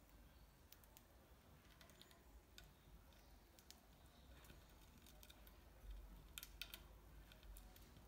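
Faint, scattered clicks of a budgerigar's beak nibbling at a bark-covered wooden perch, with a quick cluster of clicks about six and a half seconds in.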